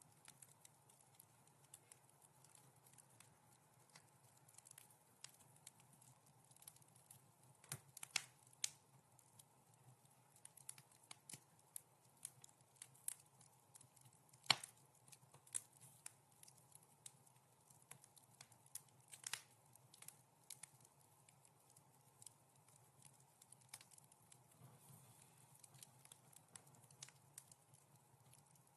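Wood fire crackling in a fireplace: soft, irregular snaps and pops over a faint steady background, with a few louder pops, the loudest about halfway through.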